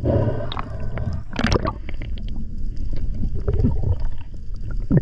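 Underwater noise picked up by a diver's camera: a steady low rumble of water moving around the housing, with gurgling. There is a sharper gurgling burst about a second and a half in.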